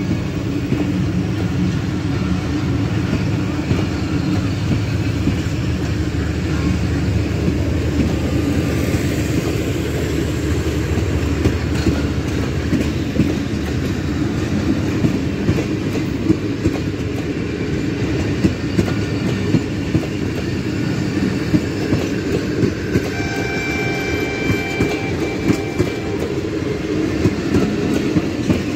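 Pakistan Railways passenger coaches rolling past at close range: a steady low rumble with rapid wheel clicks over the rail joints. A faint steady high tone sounds for a few seconds about three-quarters of the way through.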